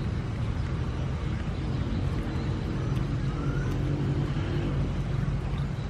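A steady low motor hum.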